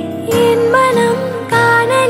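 Background music: a melody with sliding, ornamented notes over held accompaniment, a new phrase starting about a third of a second in.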